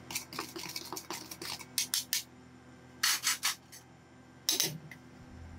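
Metal spatulas scraping over the steel cold plate of a rolled ice cream machine: a quick series of short strokes, about three or four a second, then two longer, louder scrapes.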